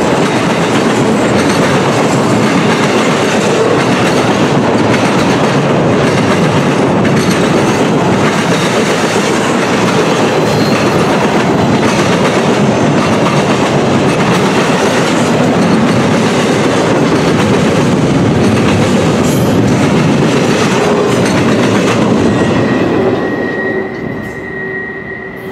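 Norfolk Southern intermodal freight train's trailer-on-flatcar cars passing close by, loud, steel wheels clattering over the rail joints. The noise drops away near the end as the last car clears.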